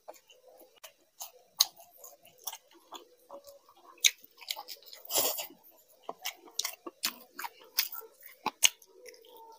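A man chewing a mouthful of food close to the microphone: a run of irregular wet mouth clicks and smacks, with one short, louder noisy burst a little after five seconds in.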